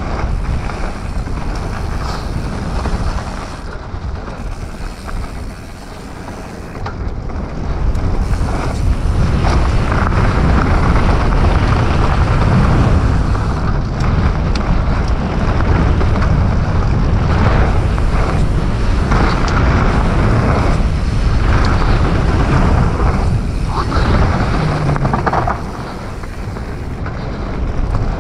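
Riding noise from a Commencal Supreme DH29 downhill mountain bike descending a dirt trail: wind rushing over the action camera's microphone, tyres rumbling, and scattered knocks and rattles from the bike over bumps. It eases off a few seconds in, then runs louder and steadier from about a third of the way through as speed picks up.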